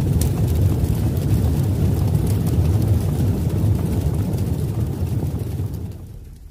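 Logo-intro sound effect: a deep, noisy rumble like a jet or a blast of smoke, holding steady and then fading away in the last second.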